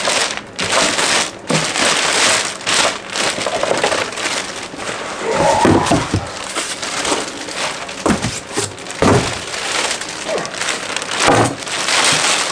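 Clear plastic bag crinkling and rustling as a heavy boxed battery is lifted out of a cardboard box and unwrapped, with a few dull knocks along the way.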